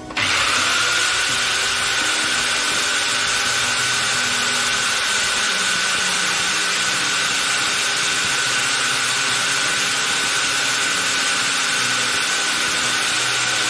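DeWalt DWE7470 table saw motor switched on and running free, with no blade on the arbor. Its whine climbs over the first second as it spins up, then holds a steady pitch.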